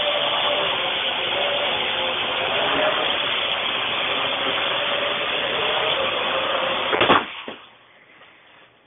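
Parrot AR.Drone quadcopter, loaded with a GoPro, flying with its four motors and propellers buzzing and wavering in pitch. About seven seconds in there is a sharp knock and the motor noise cuts out.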